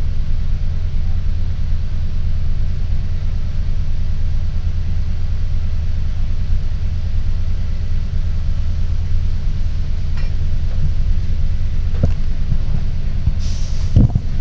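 City bus engine idling with a steady low rumble, heard from inside the passenger cabin while the bus stands at a stop. Near the end, a short hiss and a knock.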